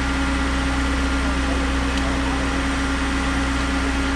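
Concrete pump truck's engine running steadily at constant speed, a continuous drone with a steady hum that holds level throughout.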